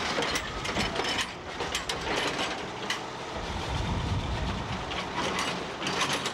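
Heavy dump truck crossing railway tracks, its metal body and tailgate rattling and clanking over the rails, with a low engine rumble in the middle.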